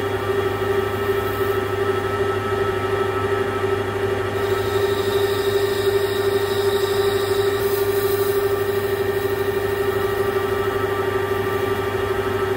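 Metal lathe turning a hydraulic cylinder piston while the tool skims deep scratches off its outside, cutting a steady stream of swarf. The lathe runs with a steady whine and a low hum under the cutting noise.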